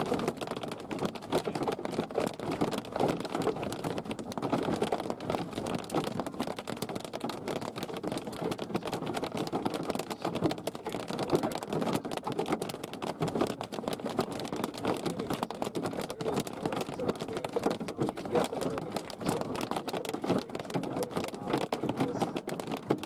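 Hailstones pelting a vehicle in a dense, steady barrage of rapid irregular clicks and clatter.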